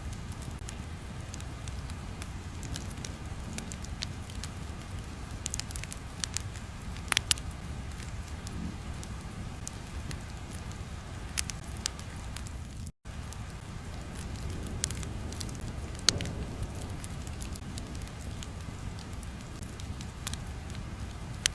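Ambient background track: a steady low rumble with scattered sharp crackles and pops. It cuts out for an instant about halfway through.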